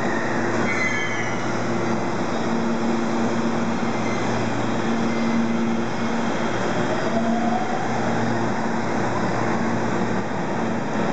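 JR West 521 series two-car electric train pulling away, with continuous wheel and running noise, a brief high squeal about a second in, and its motor whine rising in pitch past the middle as the train gathers speed.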